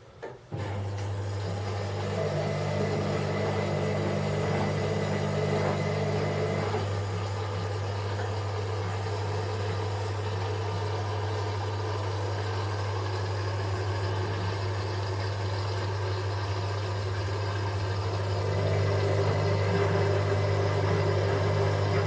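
Whirlpool WWDC 7210/1 washing machine running with a steady low hum that starts about half a second in and gets a little louder near the end.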